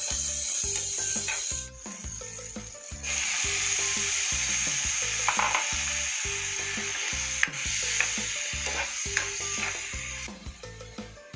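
Onions, tomatoes and squid pieces sizzling in hot oil in a nonstick frying pan while a spatula stirs them. The sizzle drops briefly about two seconds in, comes back strongly, and fades near the end.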